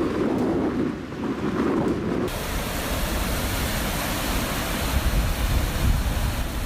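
Storm waves surging and breaking, with strong wind buffeting the microphone. About two seconds in, the sound changes abruptly from a lower rush to a louder, hissing wind-and-surf noise with a low rumble.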